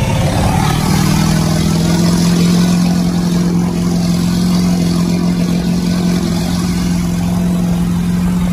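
Pickup truck engine pulling at steady throttle through deep water, heard from inside the cab: its pitch climbs a little in the first second, then holds steady. Water rushes and splashes along the sides of the truck throughout.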